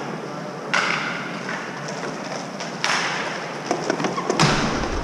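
Ice hockey skate blades cutting and scraping on the ice in three sudden rushes of hiss, about a second and a half to two seconds apart, with a few sharp knocks near the end.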